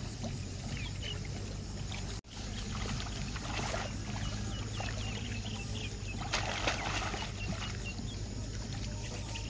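Muddy water splashing and sloshing as rice seedlings are pulled by hand from a flooded nursery bed, with two stronger splashes in the middle. Small birds chirp in the background.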